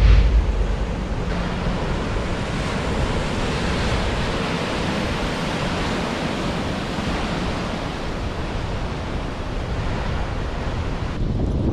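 Ocean surf breaking and washing below in a steady rush, with wind buffeting the microphone, hardest right at the start.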